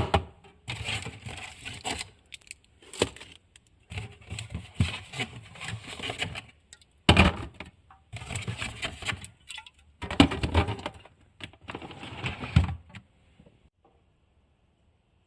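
Food packaging being handled and stacked into a fridge tray: plastic rustling and crackling with light knocks of containers, in several bursts, stopping about thirteen seconds in.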